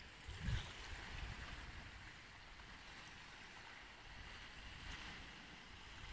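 Wind hissing through the needles of casuarina (sea pine) trees, with low gusts buffeting the microphone, the strongest about half a second in.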